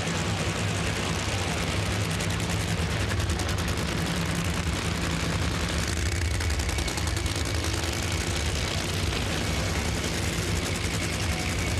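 Drag racing engines running steadily, a deep rumble with a rapid, even crackle.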